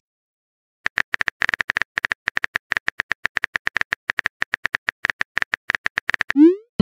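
Rapid, even run of phone-keyboard tap clicks, about nine a second, as a chat message is typed. Near the end comes a short rising whoosh as the message is sent.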